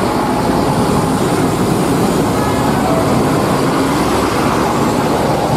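Large tour coaches driving along a road in a convoy: steady engine and road noise.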